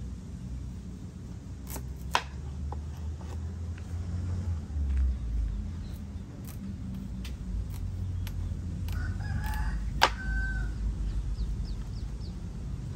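Knife cutting through a pumpkin on a wooden board, giving sharp knocks every second or two. A rooster crows about nine seconds in, over a low rumble.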